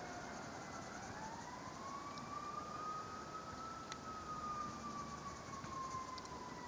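A siren wailing, its pitch climbing slowly over about three seconds and then sinking slowly. It sits over a steady hiss, with a few faint clicks.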